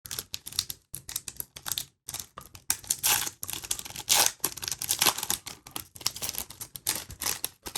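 Trading cards being handled and flipped through: a rapid run of light clicks and rustles of card stock, with two louder scraping rustles about three and four seconds in.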